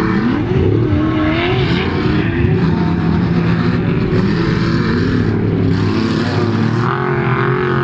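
Off-road race vehicle engines revving hard, several engines overlapping, their pitch rising and falling as they accelerate and pass.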